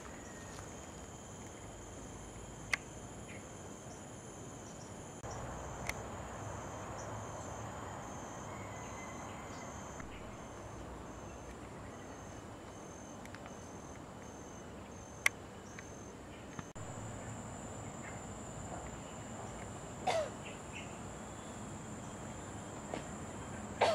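Steady high-pitched insect chorus, with a pulsing trill for a few seconds in the middle, and a few sharp clicks.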